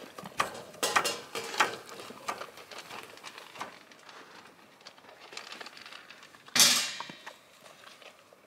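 A livestock guardian dog eating from a metal Chow Hound self-feeder: irregular clinks and knocks of kibble and feeder, with one louder clatter about six and a half seconds in.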